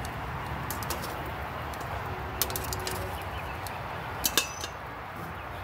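Steady hiss of vegetables cooking in a perforated grill wok over a gas grill, with a few sharp clicks and a short metallic clink about four seconds in.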